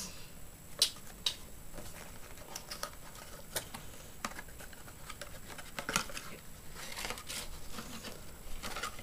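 Hands handling and opening a cardboard sunglasses box: scattered light taps, scrapes and rustles of cardboard and paper.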